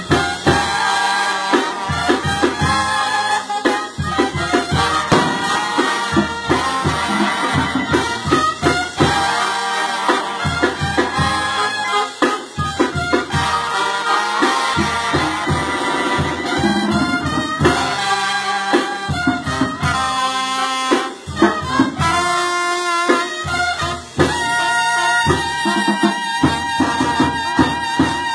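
Mexican banda brass band playing live: trumpets, trombones and a sousaphone carrying the melody over a steady drum beat.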